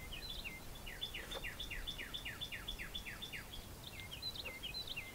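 A songbird singing: a quick run of about ten down-slurred notes, roughly four a second, with shorter chirps before and after it.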